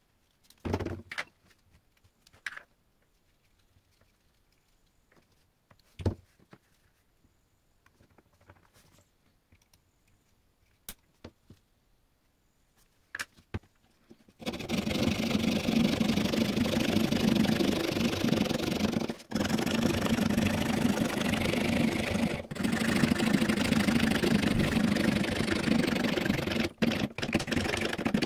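Homemade miniature fret saw cutting into a thin wooden board with quick back-and-forth rasping strokes, continuous through the second half and broken by two brief pauses. Before it come a few light clicks and taps as the blade is fitted and tightened.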